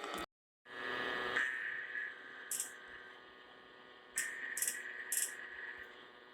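Noisy radio reception: a steady hiss with a faint high tone, broken by four short crackles of static.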